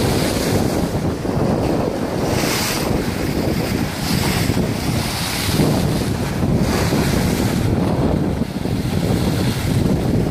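Rough sea surging in and splashing against a seawall's timber piles, with waves breaking several times. Strong wind buffets the microphone throughout.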